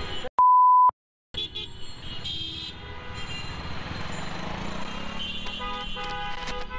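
A loud, pure electronic beep about half a second long, cut in between two silent gaps. Then street traffic noise with vehicle horns tooting, one held horn blast in the last second and a half.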